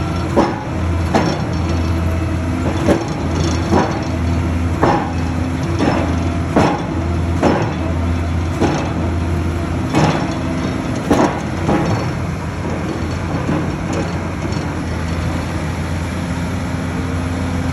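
Rotary piling rig at work: its Cummins diesel engine runs steadily under a string of sharp knocks, about one a second, that thin out after roughly twelve seconds.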